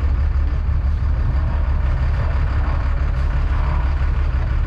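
A heavy engine running steadily with a constant low drone, typical of a truck or machine idling.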